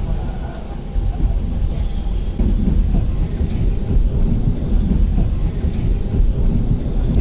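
Cabin rumble of an electric multiple unit running on the rails, with faint clicks from the track. It grows louder about a second in and again a little later as the train picks up speed.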